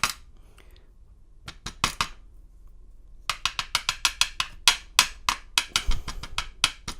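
Small metal parts of a disassembled American 700 padlock clicking and tapping as the pin stacks are worked out. A few clicks come first, then from about halfway a quick, even run of sharp clicks, about five a second.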